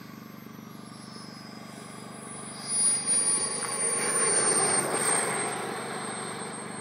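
Radio-controlled model jet going past close by: a high engine whine that slowly drops in pitch, with a rush of jet noise that swells about two and a half seconds in, is loudest for the next couple of seconds, then fades as it moves away.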